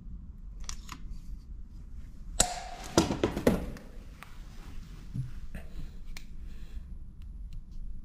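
Hard objects being handled on a work surface: a few faint clicks, then a sharp click about two and a half seconds in followed by about a second of clattering, then scattered lighter clicks.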